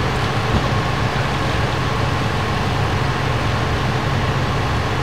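Fire apparatus diesel engine idling, a steady low rumble with a faint even whine above it.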